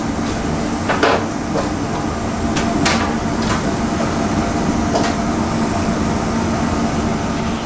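Steady mechanical hum of a commercial kitchen, with a few light taps and knocks as samosas are folded and laid on a tray.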